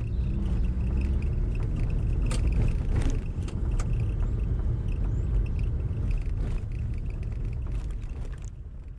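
Fiat Panda 4x4 running, heard from inside the cabin: a steady low rumble of engine and road noise with a few short knocks and rattles. It fades out near the end.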